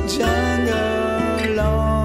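Recorded song with guitar over held double-bass notes, its melody sliding up and down in pitch.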